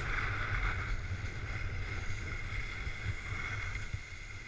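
Skis hissing and scraping over packed snow while skiing, with wind rumbling on a GoPro's microphone. The sound eases off a little near the end.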